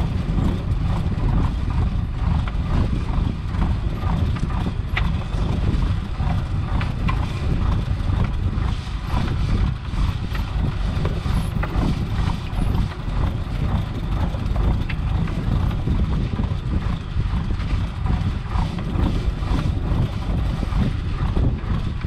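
Fishing boat's engine running with a steady low rumble. Scattered light clicks and knocks come from the gill net being shaken and cleared on deck.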